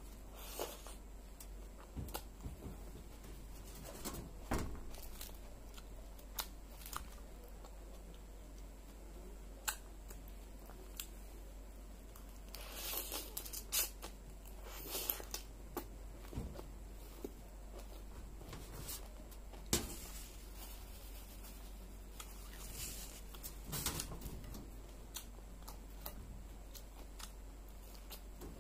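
Chewing of mouthfuls of crisp raw salad leaves, lettuce and cabbage crunching, with scattered sharp clicks. The crunching comes in denser spells around the middle and near the end.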